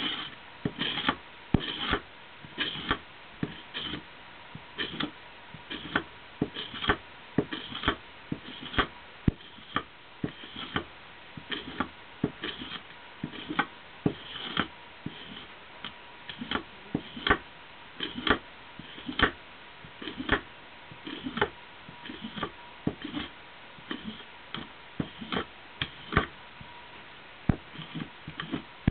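Irregular sharp clicks and light taps, about one or two a second, over a faint steady hum.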